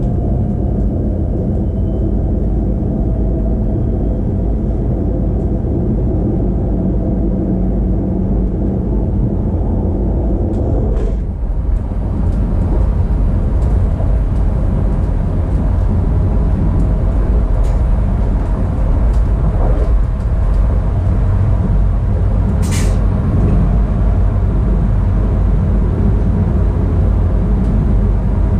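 Siemens Desiro ML electric multiple unit running along the line, a steady low rumble of the train under way. There is a brief dip with a click about 11 seconds in and one sharp short crack about 23 seconds in.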